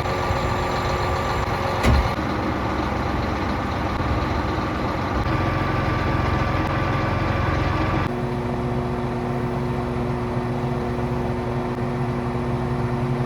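A large engine idling steadily, with a single knock about two seconds in. The engine tone changes abruptly about eight seconds in, then runs steadily again.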